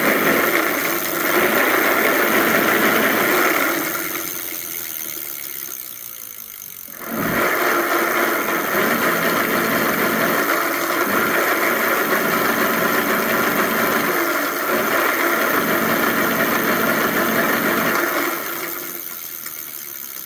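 Electric bike hub motor spinning under throttle with a rattle from inside the hub. It winds down about 4 s in, is revved up again about 7 s in, and winds down near the end. The rattle comes from either the internal gears or a bearing.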